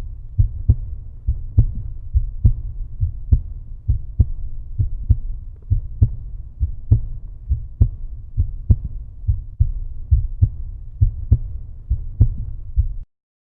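Bass-heavy outro music: a steady thumping beat, a strong thump about every second with lighter ones between, cutting off suddenly near the end.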